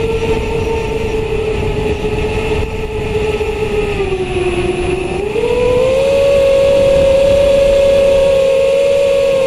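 Electric motors and propellers of a camera drone, heard from its onboard camera as a steady whine. The pitch sags slightly about four seconds in, then rises and grows louder a little past five seconds as the throttle comes up, and holds there.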